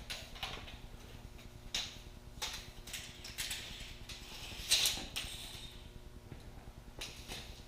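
Handling noise while measuring: a series of separate clicks and short scrapes, with a longer scraping rustle about three and a half seconds in and the loudest click about five seconds in, over a low steady hum.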